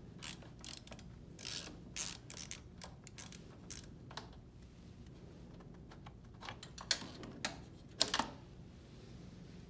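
Irregular small clicks and rattles of a T25 Torx screwdriver turning out the screws of a portable vacuum's plastic hose inlet, then of the inlet and its parts being handled and pulled off, with a few louder knocks near the end.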